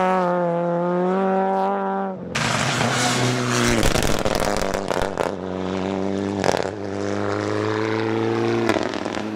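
Rally car engines running hard at high revs as the cars pass. About two seconds in, the sound cuts to a rough, noisy stretch with sharp cracks. Then another car's engine rises slowly in pitch as it accelerates.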